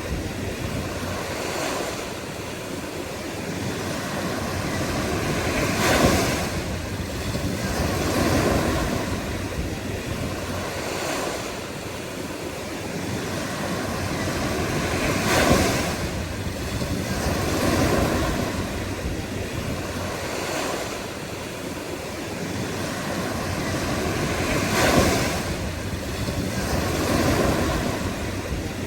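Ocean surf: waves breaking and washing in, each swelling up and fading away, with the three biggest breaks about nine seconds apart and smaller ones between.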